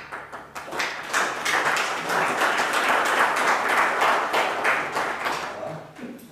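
Audience applauding: a few separate claps at first, quickly building into dense applause that fades away near the end.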